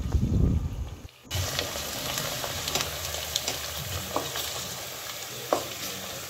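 Sliced onions and herbs sizzling as they fry in oil in a stainless steel pot, stirred with a wooden spatula that scrapes and now and then knocks against the pot. A dull low rumble fills the first second, before the sizzling sets in.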